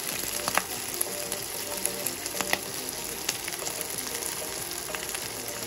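Eel pieces in a thin sauce simmering and sizzling in a nonstick wok, a steady hiss with a few light clicks as a slotted spatula stirs and touches the pan.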